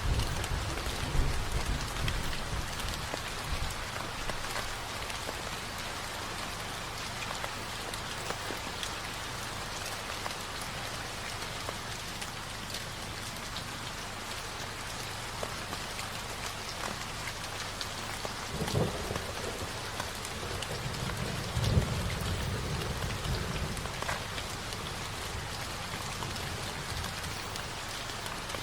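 Steady rain falling, with low rolls of thunder in the first few seconds and again about two-thirds of the way through.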